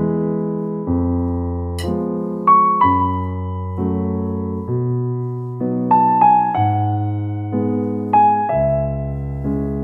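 Background music: slow, gentle piano playing sustained chords, with a new chord or melody note struck about once a second.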